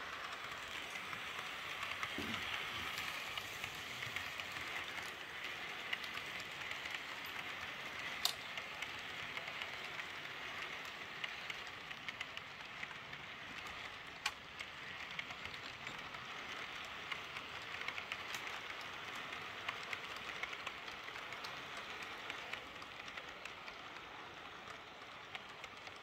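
Model railway train rolling along the track: a steady rustle of small wheels on the rails, with a few sharp clicks as the coaches pass over rail joints.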